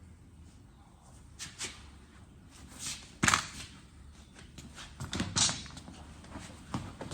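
A few scattered knocks and clanks of tools and parts being handled, the loudest about three seconds in and another pair about five seconds in, over low shop background noise.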